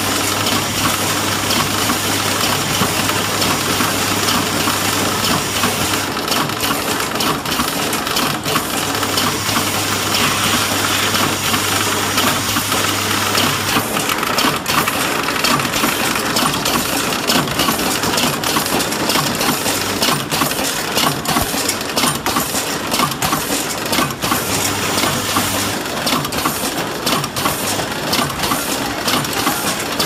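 Horizontal flow wrapping machine running, a steady mechanical clatter of many quick metallic clicks and clinks. A low hum runs under it through the first half, drops out, and comes back briefly later.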